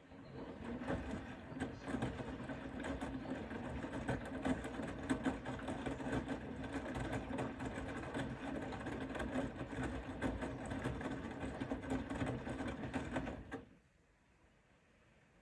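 Bosch Serie 4 WAK20260TR front-loading washing machine's drum turning under its motor during the wash, a steady hum with laundry and water tumbling and clattering inside. It stops suddenly after about thirteen seconds, as the drum pauses in its wash rhythm.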